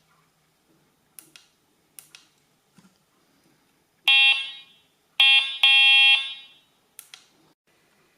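Electronic horn sound of a 1:8 scale Trabant 601 model sounding three times, the last two close together, with a few sharp clicks of a switch or button before and after.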